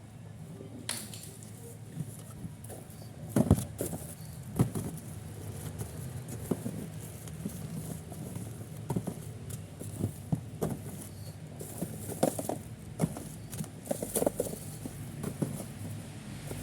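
Irregular light knocks, taps and clicks of objects being handled, louder around a few seconds in and again near the end, over a steady low hum.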